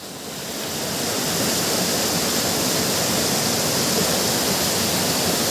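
Fast-flowing river rushing over rocks, a steady roar of white water that fades in over the first second or so.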